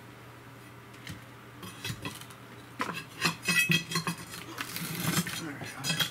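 Metal hand tool scraping, knocking and clinking against the old window frame as the wooden buck is worked loose from the concrete. An irregular run of sharp clicks and scrapes starts about a second and a half in, loudest around the middle and again near the end, over a steady low hum.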